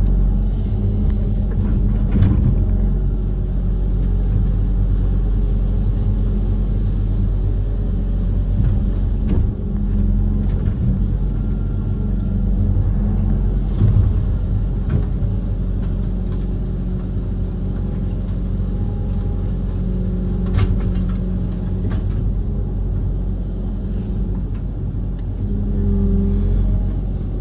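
Kobelco SK130 amphibious excavator's diesel engine running steadily, with a few sharp knocks during the work.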